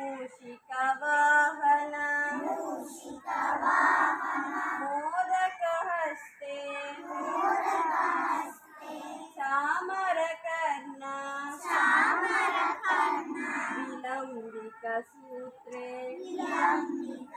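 A group of young children singing a Hindu devotional prayer together in unison, in short sung phrases with brief pauses between them.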